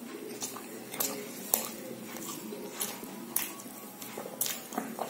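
Close-up mouth sounds of someone eating aloo paratha: chewing with wet lip smacks. Sharp, irregular clicks come a few times a second.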